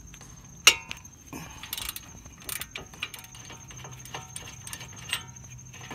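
Metal clicks and clanks of a wrench and socket working the upper caliper bracket bolt on a front brake, with one sharp clack just under a second in and scattered smaller clicks after.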